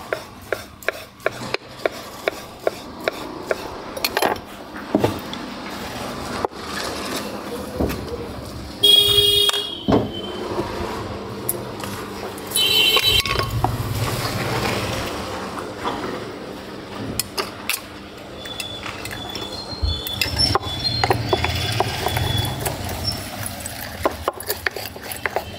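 Knife chopping a fried bhajji on a wooden cutting board, about two chops a second, stopping after about eight seconds. Two brief high beeps sound in the middle. Near the end, a utensil clinks against a small steel cup as chaat is mixed in it.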